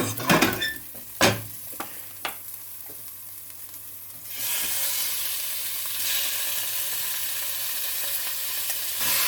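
A few clinks of a utensil against the pan, then about four seconds in a sudden steady sizzle as chicken goes into the hot oil with the sautéed garlic and ginger; the sizzle grows louder near the end.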